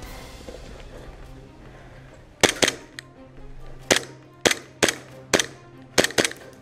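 Airsoft rifle fired in single shots: about eight sharp snaps in quick, uneven succession, some as close double shots, starting a couple of seconds in.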